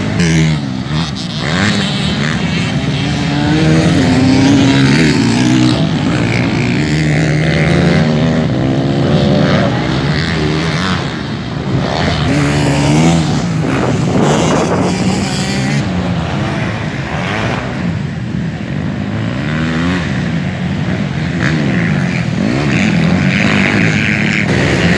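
Several motocross bikes racing together, their engine notes overlapping and repeatedly rising and dropping back as the riders accelerate and ease off. Near the end one bike passes close by.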